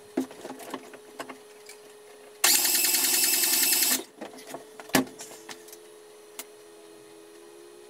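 Starter motor cranking the Polonez's Rover 16-valve four-cylinder engine for about a second and a half, with the ignition coil and fuel pump disconnected and the throttle held open, so it turns over without firing: a compression-gauge test. A single knock follows about five seconds in.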